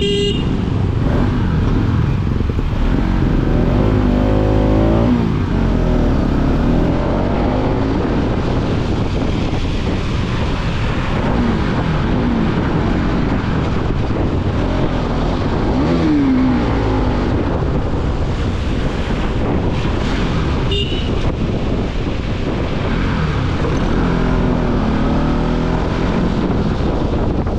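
Motorcycle engine running on the move, its pitch rising and falling several times with the throttle, under a steady loud rush of wind on the microphone.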